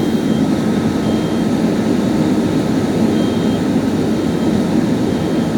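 Steady, loud engine roar from firefighting equipment running at the fire scene, unchanging throughout.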